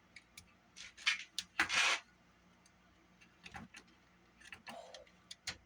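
Wire cutters working a small metal retainer clip off a flywheel shaft in a Sony Walkman cassette mechanism: a series of small sharp clicks and short scrapes, the loudest scrape about two seconds in.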